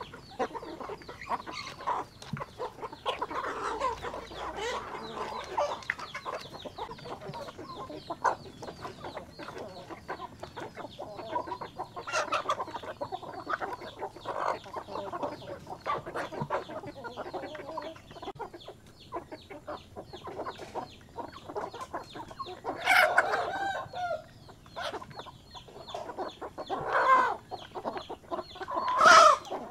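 A flock of chickens clucking continuously while feeding, with many sharp pecking clicks. Three louder calls stand out near the end.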